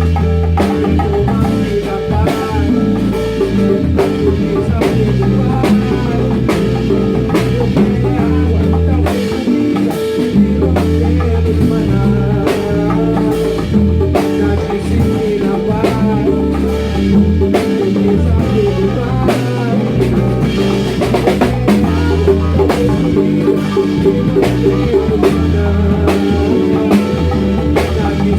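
A band playing live, with drum kit and percussion keeping a steady beat over a moving low bass line.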